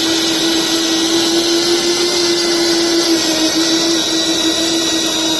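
Small cooker-style domestic flour mill running at full speed while grinding a batch of grain: a steady motor whine over a rushing grinding noise.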